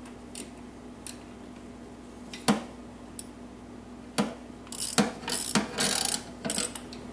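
Small hand wrench working the distributor hold-down bolt on a 5.2L (318) V8: scattered metallic clicks and knocks, then a quick run of short rasping, scraping strokes near the end as the bolt is tightened. A steady low hum sits underneath.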